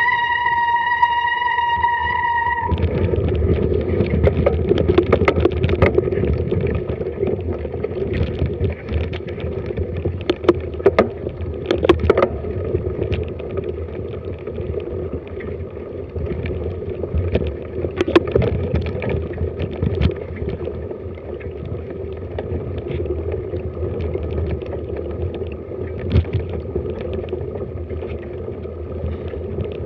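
A held musical note ends about two and a half seconds in. After it comes the bike's own sound on a forest trail: wind buffeting the action camera's microphone and tyres running over leaf-covered dirt, with scattered sharp knocks and rattles from the bike over bumps.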